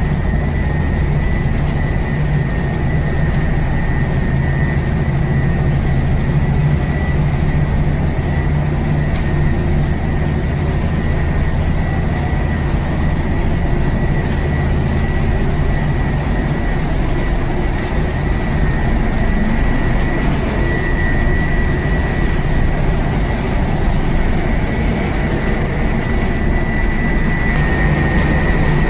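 Ship's engine running steadily: a low hum with a thin high whine held over it, dipping slightly in pitch near the end.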